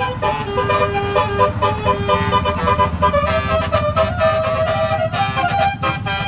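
Bus telolet horn, a Basuri multi-note air horn, playing a quick melody of stepped notes, several sounding together, over the low running of a bus engine.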